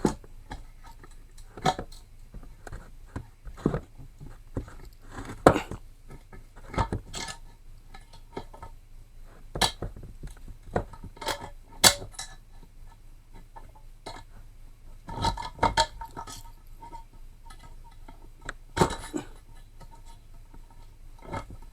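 Irregular metal clinks and clanks of hand tools against a Tecumseh small engine's cylinder block while the exhaust valve spring is being compressed and released, some strikes ringing briefly.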